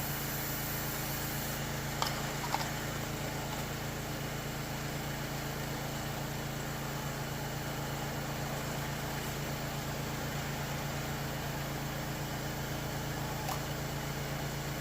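Steady low mechanical hum of a machine running in the shop, with a couple of faint clicks about two seconds in.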